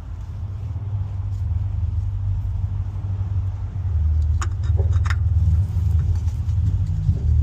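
A low, steady rumble that grows louder over the first few seconds, with a few light clicks around the middle.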